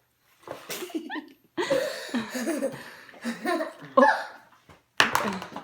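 Laughter, coming in several short, breathy runs.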